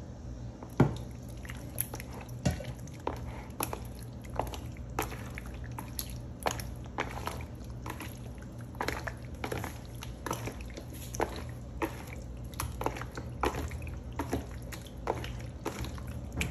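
Wet squelching of a bare hand kneading raw chicken pieces through a thick yogurt and mint-coriander marinade in a plastic bowl: irregular short sticky smacks, about one or two a second.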